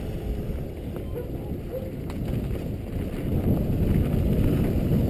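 Wind buffeting the helmet-camera microphone, mixed with tyre noise, as a downhill mountain bike rolls down a dirt track. It is a low, uneven rumble that eases early on and builds again after about three and a half seconds.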